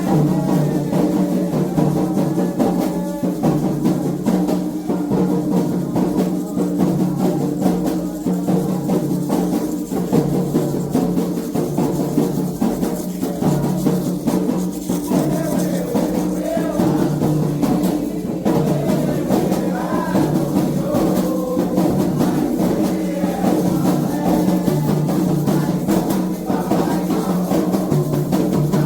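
Candomblé ritual drumming: atabaque hand drums beaten in a steady, driving rhythm with other percussion, and voices singing over it.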